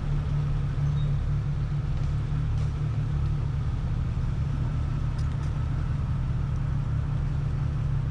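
Jeep Cherokee engine running at a steady speed, a deep, even drone with no revving.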